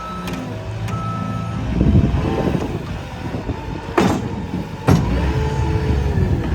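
Cat 246D3 wheeled skid steer working: its diesel engine runs and swells under load, with backup-alarm beeps near the start and a rising-and-falling hydraulic whine. Two sharp knocks come about four and five seconds in.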